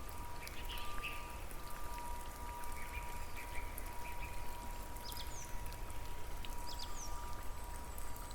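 Steady rain-like water noise with a faint, steady high tone held underneath, and a few short high bird chirps.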